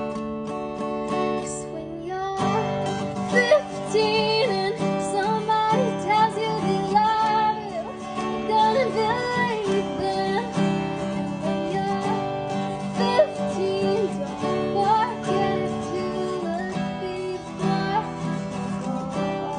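Acoustic guitar strummed in steady chords, with a singer's voice coming in about two seconds in and singing over it.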